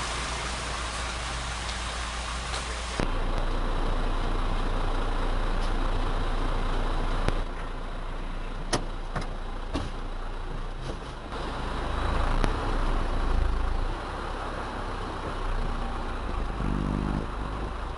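Truck engine and road noise heard from inside the cab: a steady low rumble, with a few sharp clicks between about seven and ten seconds in and a louder swell around twelve to fourteen seconds in. For the first three seconds, before that, there is a different steady vehicle noise outdoors.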